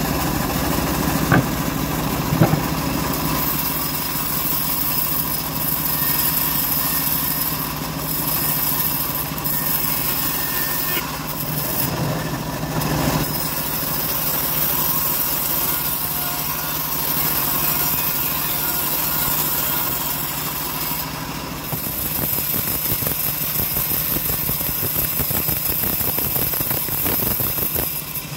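Home-built band sawmill running steadily, its drive humming as the band blade rips through teak boards with a changing hiss. Two sharp knocks come about one and two and a half seconds in.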